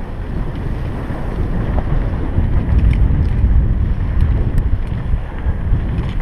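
Wind buffeting the microphone of a helmet-mounted action camera on a fast mountain-bike descent, mixed with the rumble of the tyres on a dirt trail. The rush swells louder in the middle, with a few light clicks and rattles.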